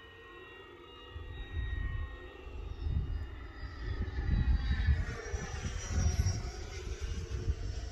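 Electric radio-control model airplane flying by, its whine bending in pitch as it passes, with wind buffeting the microphone from about a second in.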